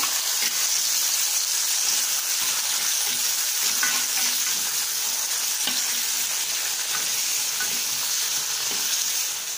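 Chopped tomatoes sizzling in hot oil in a clay pot, just tipped onto spluttered mustard-seed tempering and stirred with a steel ladle. A steady high hiss runs throughout, with a few light scrapes of the ladle.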